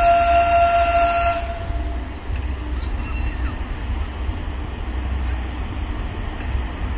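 Indian Railways electric locomotive sounding one long, steady horn note that cuts off about one and a half seconds in, followed by the low rumble of the approaching train.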